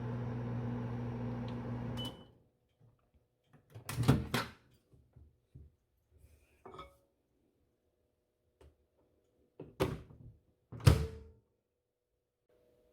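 A 30-year-old Goldstar microwave oven running with a steady hum, which stops about two seconds in with a short high beep. Then a few knocks and thunks follow, the loudest two near the end.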